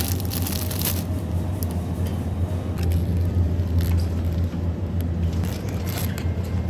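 A steady low rumble, with scattered light crinkles and taps of plastic-wrapped produce being handled and set down in a plastic shopping basket.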